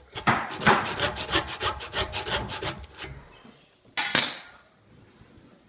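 A blade sawing back and forth through a clamped Titleist Pro V1 golf ball, a fast run of rasping strokes for about three seconds. About four seconds in comes one sharp clatter, as the blade is put down on the stone countertop.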